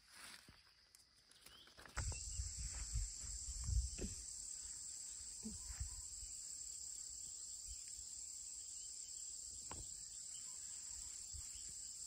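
Steady high-pitched drone of an insect chorus, starting suddenly about two seconds in. A few low thumps and rumbles sound over it for the next two seconds.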